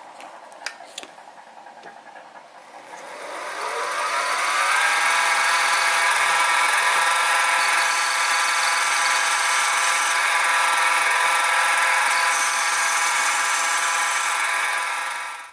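Sieg SX2P mini mill's spindle motor spinning up with a rising whine a couple of seconds in, then running at a steady pitch while a 2.7 mm drill bit goes through a small brass workpiece; a few light clicks come before it starts, and the sound stops abruptly at the end.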